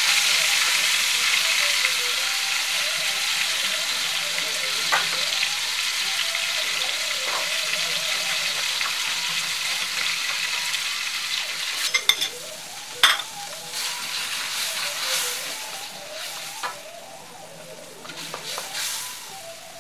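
Spice paste and lemongrass sizzling in hot oil in a steel wok while a spatula stirs them. About halfway through, the sizzle dies down as the pan turns to a wet gravy, and the spatula clicks and scrapes against the wok a few times.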